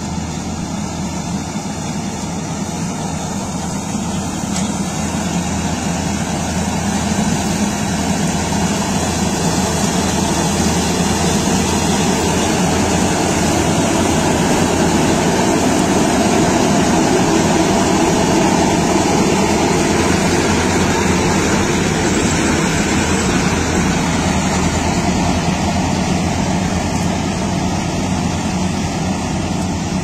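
Kartar 4000 combine harvester running under load as it cuts and threshes a mustard crop: a steady, dense engine and machinery drone. It grows gradually louder toward the middle, then eases off a little.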